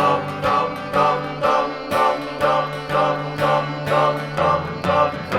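Instrumental passage of a rock song: strummed guitar chords with bass in a steady rhythm, about two strokes a second.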